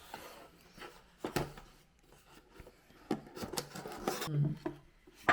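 Handling noises at close range: scattered clicks and knocks with rustling and rubbing between them, as small items are picked up and set down.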